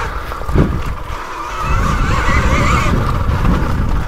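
Electric motor and drive gears of a 2020 KTM Freeride E-XC dirt bike whining on a trail ride, the whine wavering up and down in pitch and strongest about two to three seconds in. Underneath are low rumble and a few knocks from the tyres and chassis over the rough track.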